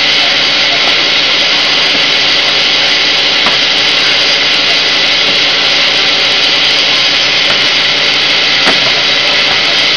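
Extrusion blow molding machine running: a loud, steady, even machine noise with a faint hiss. A light knock comes once near the end.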